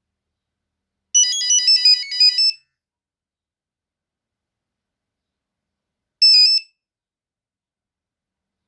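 Nokia 3310 monophonic ringtone: a quick run of high, beeping electronic notes lasting about a second and a half. A short phrase of a few notes follows about five seconds later.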